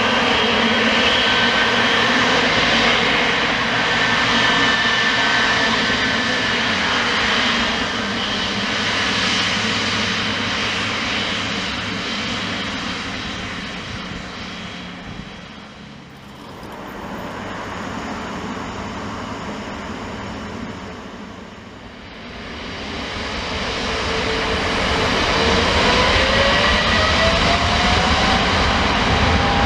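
Jet airliner engines running loud and steady with a whine. The sound sinks twice in the middle, then builds again as a whine rises in pitch near the end.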